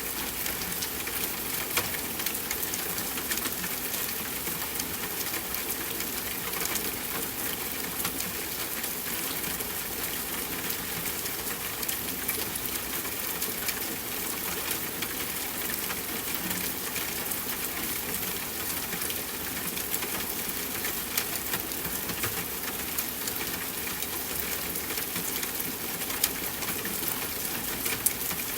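Steady rain falling: an even hiss full of scattered small drop taps, with a few sharper, louder taps in the second half.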